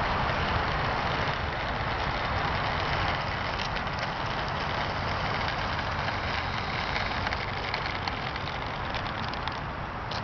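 Twin electric motors and propellers of a ParkZone Mosquito model plane running at low throttle as it taxis, a steady whirring hiss over a low, fluttering rumble. The sound grows slightly quieter toward the end.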